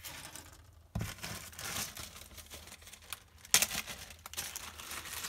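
Plastic bag of LEGO minifigures crinkling as it is handled and pulled open, starting suddenly about a second in, with a loud sharp crackle about three and a half seconds in.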